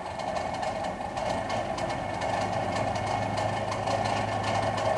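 Bus oil-cooler fan running loudly, a steady whir with a rapid irregular ticking. The fan wobbles and strikes a part beside it, and its motor bearing is close to worn out.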